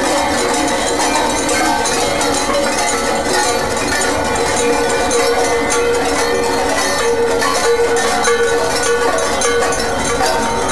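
Loud carnival street percussion, led by a metal bell struck over and over in a steady rhythm. A held tone sounds above it for several seconds mid-way.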